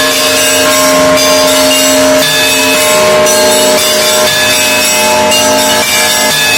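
Russian Orthodox monastery bells being rung together: several bells struck in turn, their ringing tones overlapping and sustaining.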